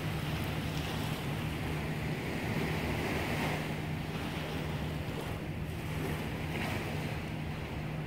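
Seaside ambience: waves washing gently with wind on the microphone, swelling a little twice, over a steady low hum.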